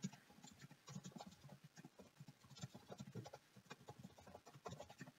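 Faint computer keyboard typing: a run of soft, irregular key clicks.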